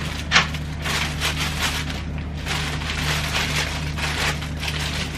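Clear plastic packaging around a polo shirt crinkling and rustling as it is handled, with irregular crackles and a sharper click less than half a second in, over a steady low hum.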